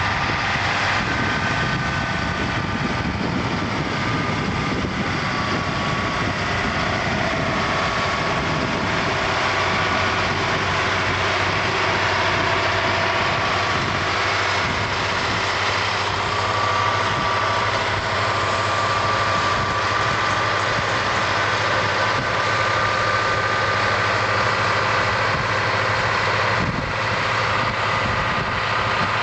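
Diesel engine of a heavy wheel loader running steadily as it drives over the sand, with a whine above the engine note.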